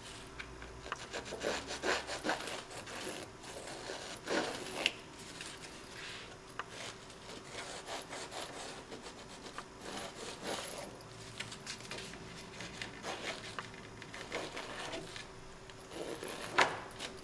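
A handheld paper distresser scraping along the edges of a cardstock greeting card in short, irregular strokes, roughing up the paper edges to give the card an aged look.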